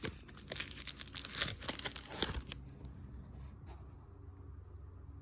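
A page of a photo book being turned by hand: paper rustling and crinkling with small clicks for about two and a half seconds, then only a faint low hum.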